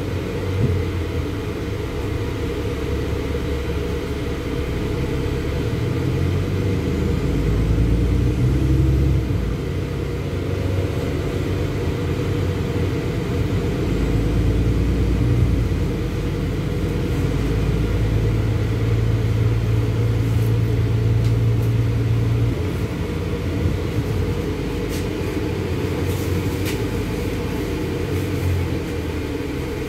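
LiAZ-6213.65 articulated diesel city bus heard from inside the cabin while driving: a continuous low engine and road rumble that swells and eases as it pulls away and slows, with a steady low hum for a few seconds past the middle.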